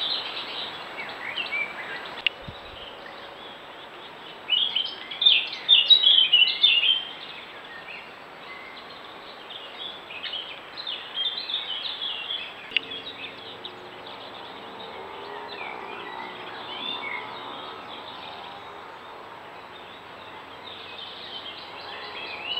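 Small birds chirping and singing in quick high notes, loudest in a dense burst about five to seven seconds in and again around ten to twelve seconds, over a steady hiss.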